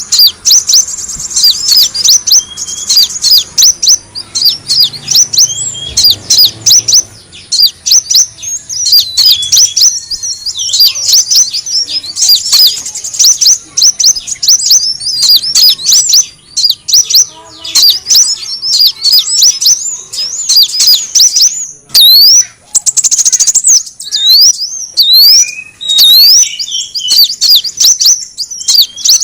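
Kolibri wulung sunbird calls, used as a bird-catching lure: a dense, unbroken stream of rapid, high, thin chirps and short sweeping notes.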